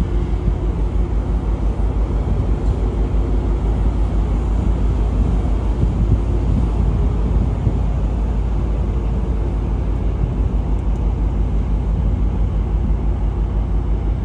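Steady low rumble with rapid flutter and a faint hum above it, the open-air background on the bridge wing of a large container ship under way.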